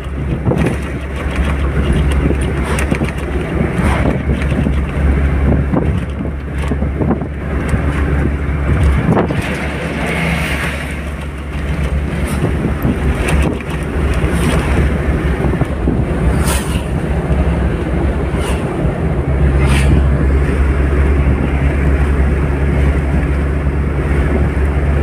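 Car cabin noise at highway speed: a steady, loud low rumble of engine and tyres with wind on the microphone, and a few short knocks scattered through it.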